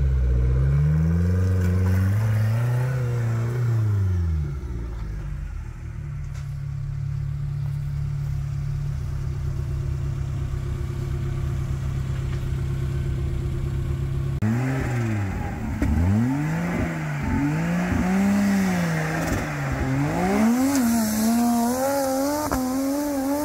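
Off-road 4x4 vehicle's engine revving up and down in a few bursts, then running at a steady idle for about ten seconds. At about fourteen seconds it starts revving hard again several times, the revs climbing higher near the end.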